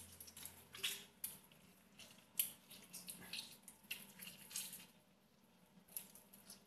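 Citrus fruit squeezed by hand over a raw whole chicken in a pan: faint, irregular squishes of the fruit and drips of juice falling onto the meat and pan.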